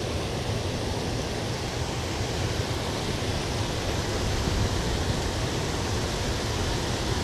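Creek water pouring over a low concrete spillway onto rocks, a steady rushing hiss.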